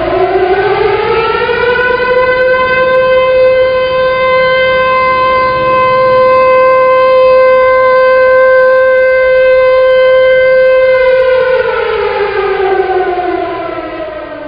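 Civil defense siren winding up to a steady wail. It holds one pitch for about nine seconds, then winds down, falling in pitch and fading near the end.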